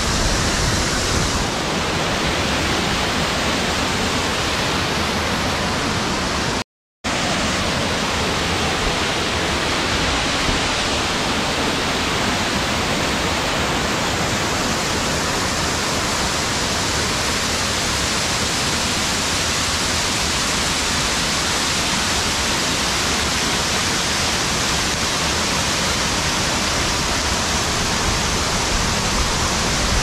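Waterfall pouring over rocks into a churning pool: a steady, loud rush of water. It cuts out completely for a split second about seven seconds in.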